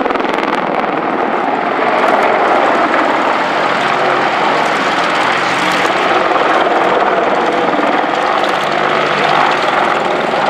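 AgustaWestland Apache AH1 attack helicopter in flight while manoeuvring, its rotor and twin turboshaft engines making a loud, steady noise.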